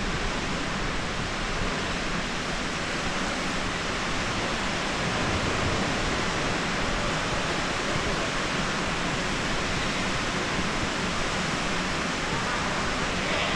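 Steady, even rushing noise: the ambience of a large indoor aquarium hall, with no single event standing out.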